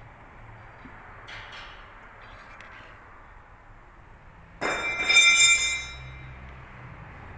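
Metal striking metal with a sharp clank and a bright ringing, about four and a half seconds in and lasting over a second, over a low steady hum.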